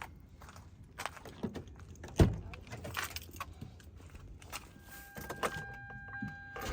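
Car keys jangling with scattered light clicks and knocks as the key is handled before cranking, including one sharp knock about two seconds in. A steady high tone comes on about five seconds in.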